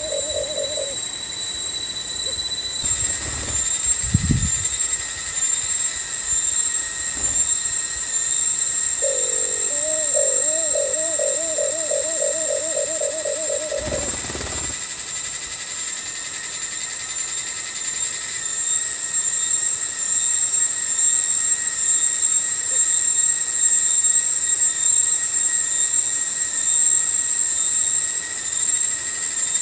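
A steady, high-pitched drone of forest insects runs throughout. Partway through, a wild dove gives a long, fast series of low coos lasting about five seconds. There are a couple of brief low thumps.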